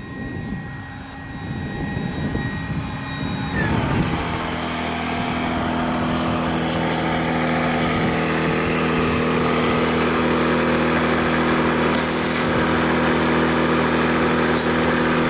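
A small motor starts up about four seconds in with a short rising whine, then runs at a steady, even hum.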